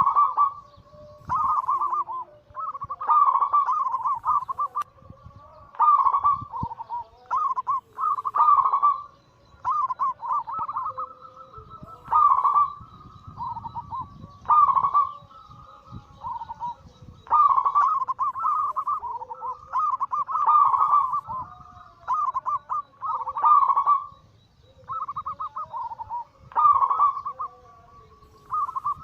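Zebra doves (perkutut) cooing. Bursts of quick rolling coo notes follow one another every second or two without a break.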